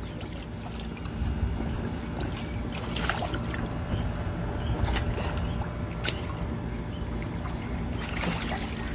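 Water sloshing and splashing in a shallow inflatable pool as a child climbs off an inflatable swim ring and crawls through the water, with a few short sharp splashes and knocks scattered through.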